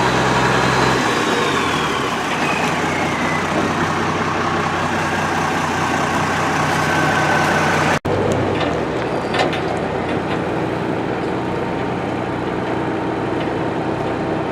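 Heavy diesel equipment engine running steadily, with a high whine that slides down in pitch over the first several seconds. The sound breaks off abruptly about eight seconds in, then the engine runs on steadily.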